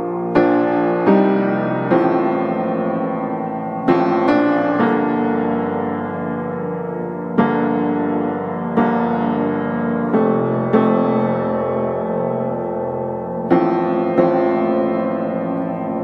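Background piano music: slow single notes and chords, struck about every one to two seconds and left to ring and fade.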